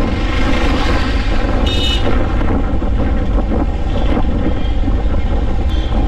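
Royal Enfield Himalayan's single-cylinder engine running steadily as the motorcycle rides through slow town traffic, under a heavy low rumble of wind on the microphone. A short high beep sounds about two seconds in.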